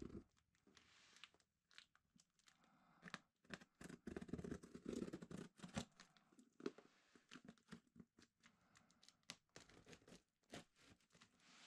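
Hands handling and turning a cardboard box wrapped in tape: scattered scuffs, taps and crinkles of tape and cardboard, with a busier stretch of rustling about four to six seconds in.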